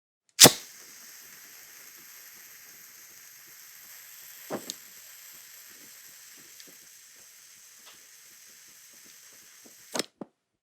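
Gas lighter struck with a sharp ignition click, then the gas and flame hiss steadily for about nine and a half seconds with a faint crackle. Near the end there are a couple of clicks as the valve is released and the hiss cuts off suddenly.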